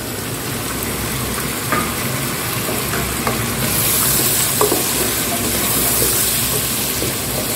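Potato wedges, onion and ginger-garlic paste sizzling steadily in hot oil in a pot while a spatula stirs and scrapes them, with a few light clicks of the spatula against the pot. The sizzle gets louder about halfway through as the food is turned over.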